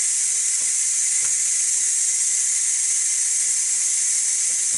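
Steady steam hiss from a Ninja Foodi Deluxe pressure cooker's release valve during a quick release, venting pressure after cooking eggs.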